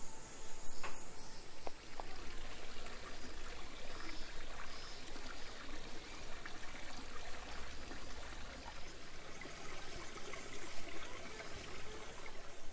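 A small garden stream running, a steady babble of water.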